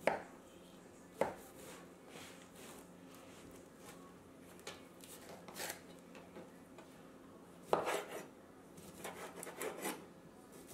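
Chef's knife slicing smoked sausage on a plastic cutting board: groups of quick cutting strokes, with a few sharp knocks of the blade on the board, at the start, about a second in and about eight seconds in.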